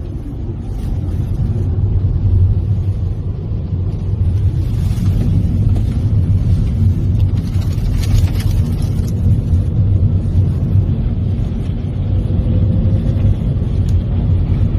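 Steady low rumble of a car driving, heard from inside the cabin: road and wind noise, with a louder hiss about five seconds in and again around eight to nine seconds.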